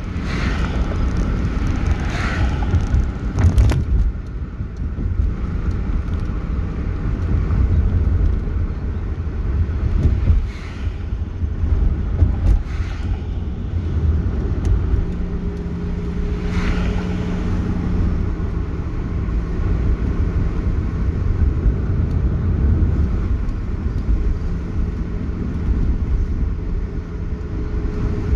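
Road noise heard from inside a moving car: a steady low rumble of tyres and engine, with oncoming cars whooshing past a few times.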